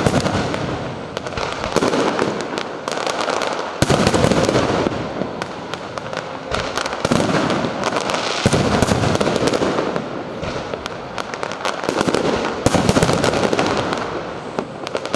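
Aerial fireworks display: a dense, continuous barrage of shell bursts and crackling, with heavier bursts landing every two to four seconds.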